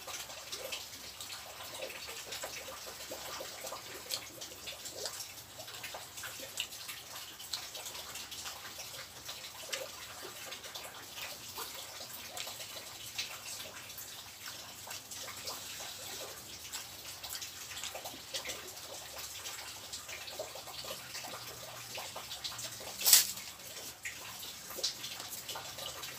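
Close-up eating sounds: wet chewing and lip smacking while eating rice and fried catfish with sambal by hand, a steady run of small clicks. One much louder sharp crack comes near the end.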